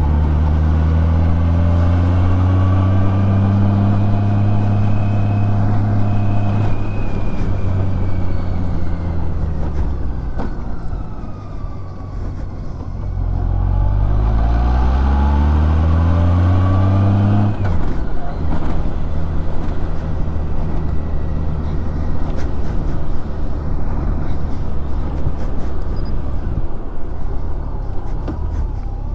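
Honda Gold Wing motorcycle engine under way: its note holds steady for the first several seconds and eases off around ten seconds in, then climbs in pitch as the bike accelerates and drops away suddenly about eighteen seconds in, leaving steady wind and road noise.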